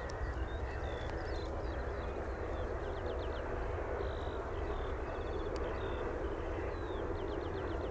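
Helicopter flying past: a steady rumble and hiss. Small birds chirp and trill over it every second or so.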